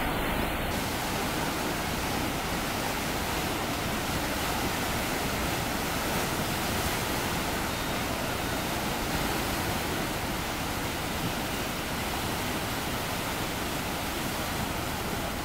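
Bono tidal bore, the river's tidal wave breaking and churning as it surges upstream: a steady, even rush of turbulent water.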